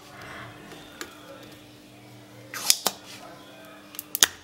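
Soldering a PTC thermistor onto a TV circuit board: a few sharp clicks and taps of the soldering iron and solder against the pads, in two short clusters about two and a half and four seconds in, over a faint steady hum.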